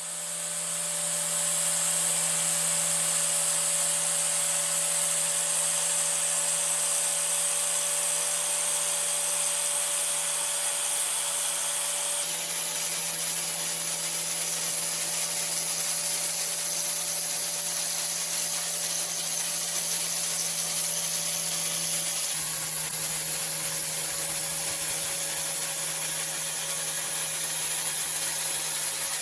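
Electric power tool running steadily, with a constant hum and a high hiss; its sound shifts slightly about twelve seconds in and again a little past twenty-two seconds.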